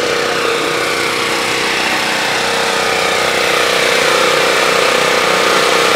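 Plastic stroller wheels rolling over rough asphalt: a steady, loud, noisy hum with a constant tone in it, growing slightly louder.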